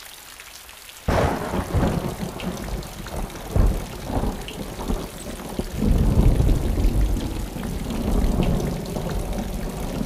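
Rain and thunder: a sudden clap of thunder about a second in, then steady rain with deep rolling rumbles that swell and fade.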